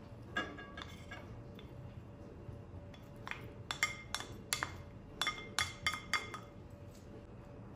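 Wooden spoon tapping and scraping against a glass bowl as diced onion is pushed out, with one clink just after the start and then a quick run of about a dozen ringing glass clinks later on.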